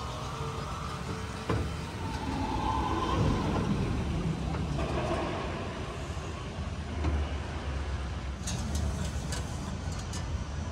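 Ride car running along its guided track, a steady low rumble, with a knock about a second and a half in and a few sharp clicks and rattles near the end.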